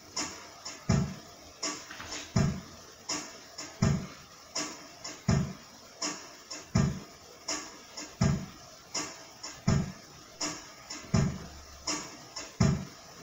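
Background music with a slow, steady beat: a low drum hit about every second and a half, with lighter clicking percussion between the hits.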